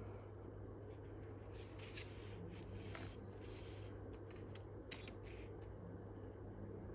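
Faint rustling and scraping of a sheet of graph paper and a plastic ruler being handled on a clipboard, in two short flurries of scratchy strokes, over a steady low hum.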